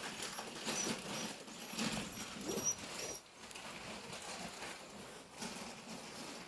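A dog moving about, its paws pattering and rustling. Faint, short high chirps come several times in the first three seconds.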